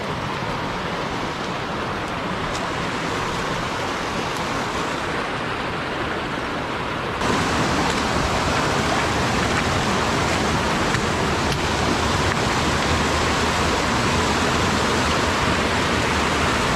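Mountain creek water rushing steadily over rocks, a continuous hiss; it gets louder and brighter about seven seconds in.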